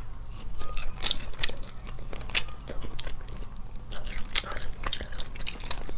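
Close-miked chewing and biting of sauce-coated shellfish, with many short, crisp crunching clicks scattered irregularly.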